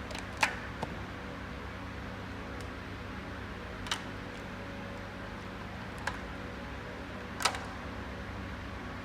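Tools clinking against engine parts: four sharp, scattered clinks over a steady hum, the loudest about half a second in and near the end.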